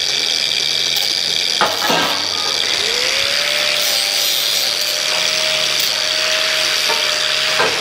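Two hand-held angle grinders running, deburring the cut ends of steel square tubing with a steady high whine. About three seconds in, a second, lower pitch rises and then holds, and there are a couple of short metal knocks.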